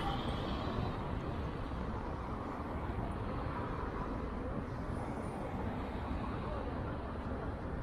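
Road traffic: cars driving past on a city street, a steady rush of engine and tyre noise.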